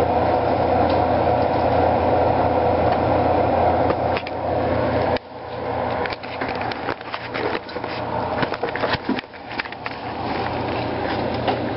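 A steady hum for about five seconds that drops off suddenly, then irregular knocks and scrapes of a spatula stirring sauce in a stainless steel pan on the stove, mixed with knocks from the camera being handled.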